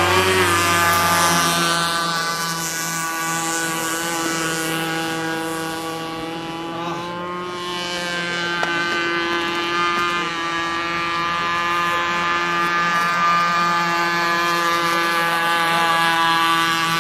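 Electric RC race boat with twin motors on a 6S battery, running on the water: a steady high motor whine with many overtones, its pitch wavering now and then with the throttle.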